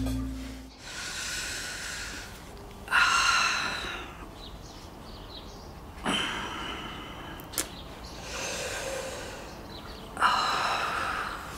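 A woman breathing heavily and sighing, five long breaths a couple of seconds apart, pained breaths as she works her stiff, aching joints. A short click comes about seven and a half seconds in.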